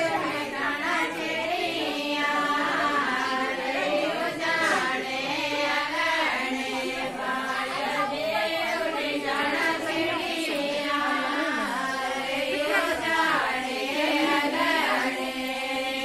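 Group of women singing a Pahari suhag geet, a Himachali wedding folk song, together without instruments.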